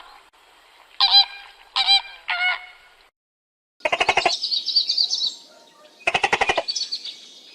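Animal calls: three short honking calls, then runs of rapid pulsed chattering calls with a higher whistling note over them.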